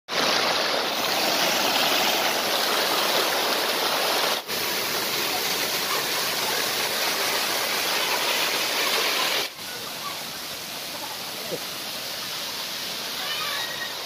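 Rushing water of a waterfall and a stream cascading over rocks, a steady hiss-like rush. It changes abruptly twice, about four and a half and nine and a half seconds in, and the last part is quieter.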